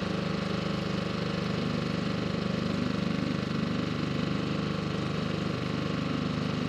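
Small outboard motor on a dinghy running at a steady, low throttle.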